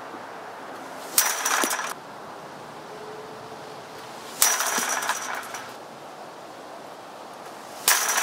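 Baseballs thrown into a chain-link fence, three hits about three seconds apart. Each is a sharp smack followed by the fence's brief metallic rattle.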